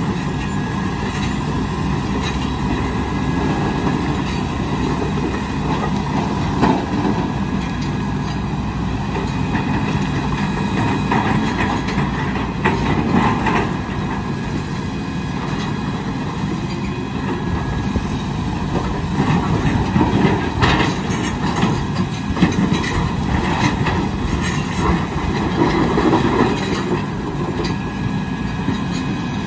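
Large Volvo crawler excavator's diesel engine running steadily under load, with rock clattering and knocking as its bucket digs through broken stone, a few louder knocks standing out.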